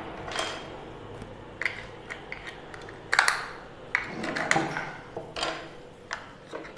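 AAA batteries being fitted into a plastic remote control's battery compartment: a scattering of small clicks and taps, the sharpest about three seconds in.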